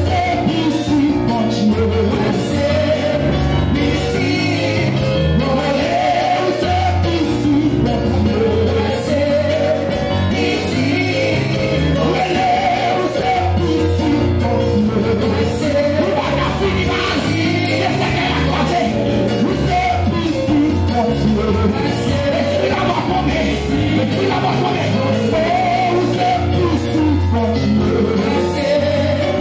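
Loud live gospel worship music: a bass line stepping from note to note under frequent drum and cymbal strokes, with voices singing over it.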